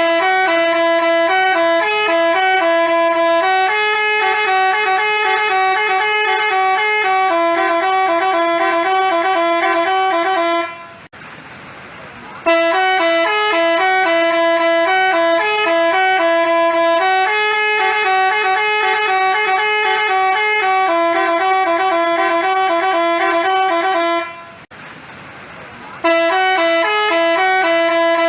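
Basuri telolet horn playing a multi-note tune, stepping from note to note; the tune breaks off twice for a second or so and starts over each time.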